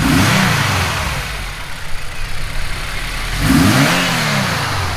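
Toyota 86's flat-four engine, fitted with a Mishimoto cold air intake, revved twice in quick blips: the pitch climbs and falls back right at the start and again about three and a half seconds in.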